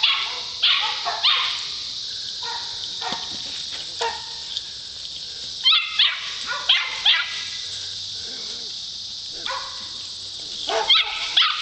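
Poodle barking in short clusters of sharp barks while herding goats, over a steady high hiss.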